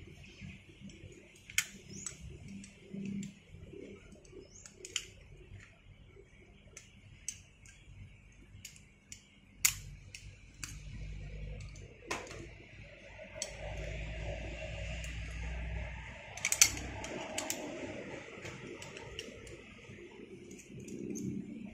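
Scattered sharp metallic clicks and clinks of rope-rescue hardware, such as carabiners and rope devices, being handled and clipped on a harness. A low rumble sits under the clicks in the middle.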